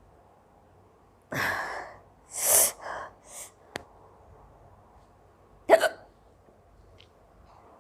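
Woman hiccupping repeatedly in short, sudden gasps, the loudest one near the end. The hiccups were brought on by eating spicy pepper.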